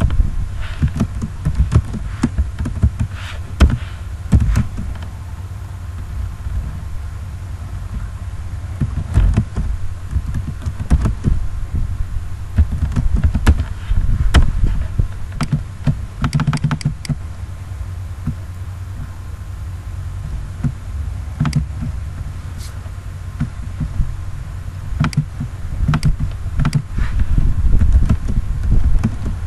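Typing on a computer keyboard: irregular keystroke clicks in short runs with pauses, over a steady low hum.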